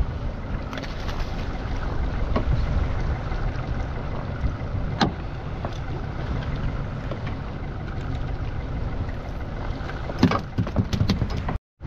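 Steady low rumble aboard a small fishing boat at sea, with a sharp click about halfway through and a cluster of clicks and knocks near the end. The sound cuts out for an instant just before the end.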